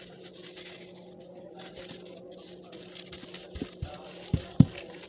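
Wooden rolling pin rolling out bread dough on a table: soft rustling of gloved hands and dough at first, then a few sharp knocks of the pin against the tabletop in the second half, the loudest a little after four seconds in.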